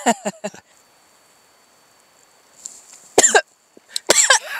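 A woman's short vocal sounds: a few brief voice sounds at the start, a single cough about three seconds in, then more short voice sounds near the end.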